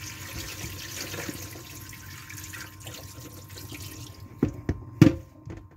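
Rinse water poured off a container of potatoes into a sink, a steady splashing trickle for about four seconds. Then come two sharp knocks about half a second apart, the second one the loudest.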